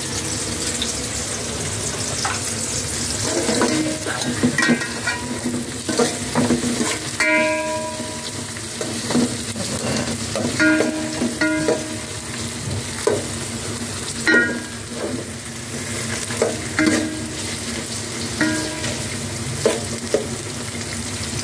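Ginger strips, onion and garlic sizzling in oil in a stainless steel pot, being sautéed. A metal spoon stirs them, scraping and knocking against the pot again and again, some strokes leaving a short metallic ring.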